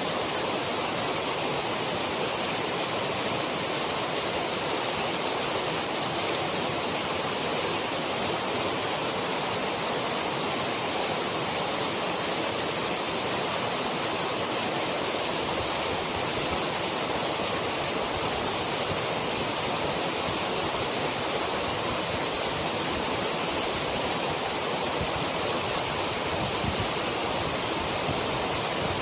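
Loud, steady rush of a waterfall, a continuous wash of falling water with no breaks.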